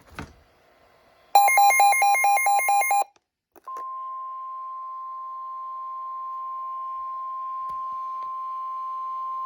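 Emergency Alert System signal: a short, rapidly switching burst of digital data tones (the SAME header), then, after a brief gap, one long steady alert tone near 1 kHz, the NOAA Weather Radio warning alarm tone that comes before a warning message.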